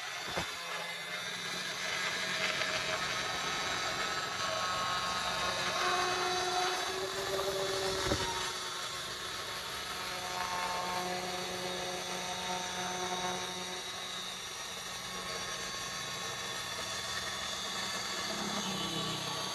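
Kainuo 4003 handheld electric tile cutter (1230 W, 110 mm blade) running at speed and cutting through a glazed ceramic tile. A steady motor whine mixes with blade grinding, and its pitch wavers slightly under load.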